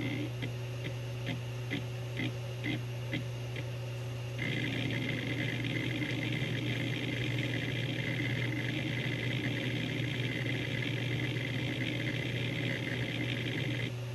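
Opened Seagate Barracuda ATA IV ST340016A hard drive, its spindle running with a steady hum. For the first few seconds the head actuator clicks through separate seeks about twice a second. From about four seconds in it chatters continuously with rapid random seeks, which stop just before the end.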